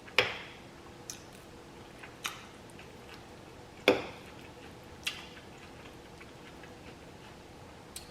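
Close-miked eating sounds while chewing barbecued chicken: about six sharp, wet clicks and smacks at uneven intervals, the loudest at the very start and about four seconds in.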